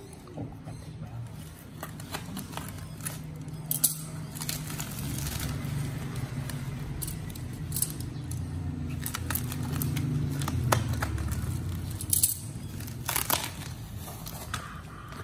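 Plastic courier mailer bag crinkling and rustling as it is cut and pulled open by hand, with scattered sharp clicks from scissors being handled and set down. A low hum runs underneath, louder in the middle.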